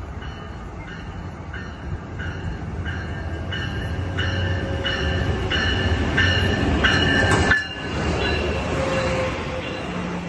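Amtrak Pacific Surfliner train passing close: a low rumble that builds as the locomotive approaches and goes by, then the cars rolling past. Over it, a bell rings about twice a second, loudest as the locomotive passes, which fits the locomotive's bell rung when entering a station.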